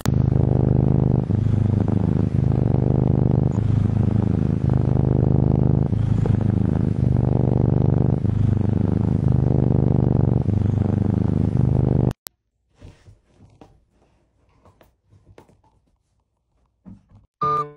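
A domestic cat purring loudly, in a steady drone that swells and eases with each breath, about once a second. It cuts off suddenly about twelve seconds in, leaving only faint small sounds.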